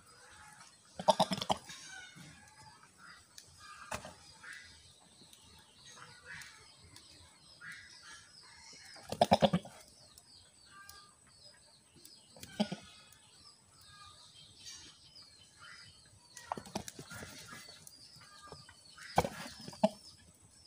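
Goats bleating in short, loud cries, about five times spread through, with faint bird chirps in between.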